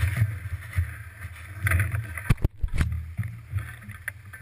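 Low, uneven rumble from the mountain bike's handlebar-mounted camera as the bike rolls over rough ground, with a few sharp knocks a little past halfway as the bike jolts.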